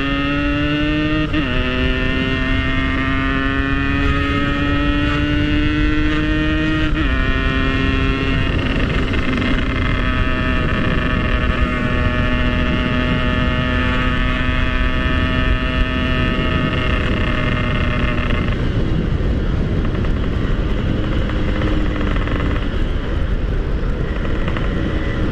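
Yamaha RX-King two-stroke single-cylinder motorcycle engine under way. Its revs climb and drop sharply at two gear shifts, about a second in and about seven seconds in, then hold steady while cruising. The revs ease off a little past halfway, all over a steady rush of noise.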